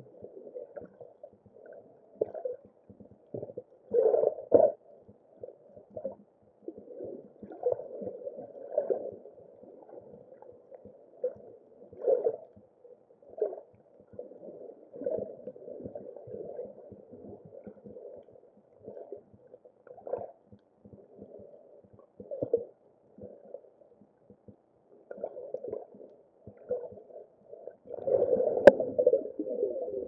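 Water gurgling and sloshing, heard underwater and muffled, in uneven bursts that grow busier near the end, with one sharp click shortly before the end.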